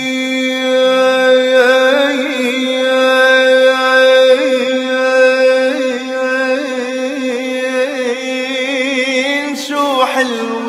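Lebanese pop music: a steady held drone under a wavering melodic line, with a quick falling slide near the end.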